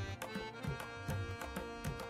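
Instrumental background music with a steady drum beat under sustained melodic notes.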